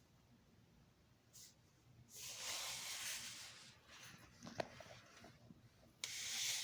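Soft rustling hiss twice, the first lasting about a second and a half, the second shorter near the end, with a single light click between: handling noise.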